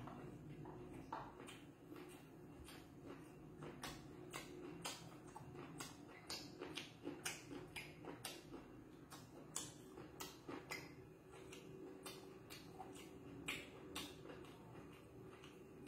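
Close-up chewing: faint, irregular wet clicks and lip smacks from a mouth eating raw beef salad with fresh herbs, denser about six to eight seconds in. A steady low hum runs underneath.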